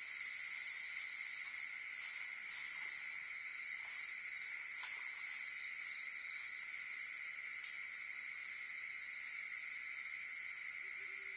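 Insects chorusing: a steady layered high-pitched trilling, with a faster pulsing chirp above it. A few faint short calls come in the first half, and a brief low trill near the end.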